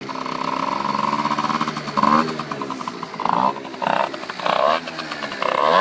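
Chironex Pistol 50R scooter's two-stroke engine with a Malossi 70cc cast-iron cylinder kit and Stage6 Pro Replica expansion pipe, running steadily for about two seconds and then blipped on the throttle about five times, each rev rising and dropping back.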